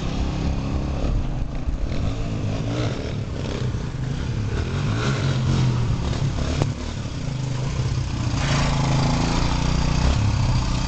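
Suzuki DR-Z125 dirt bike's single-cylinder four-stroke engine, bored up to 143cc, running as the bike rides toward the listener. It gets louder as the bike comes close, about two-thirds of the way through.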